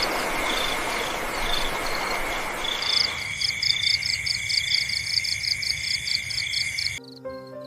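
Insects chirping: a steady high trill with a pulsed chirp about four times a second, over a hiss that fades out about three seconds in. Music comes back in near the end.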